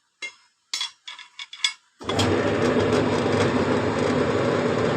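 A few light metal clinks, then, about two seconds in, a workshop machine starts abruptly and runs with a loud, steady noise.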